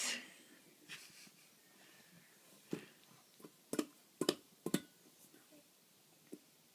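A baby's hands slapping an upturned stainless steel mixing bowl: a handful of irregular taps, the loudest three in quick succession a little past the middle.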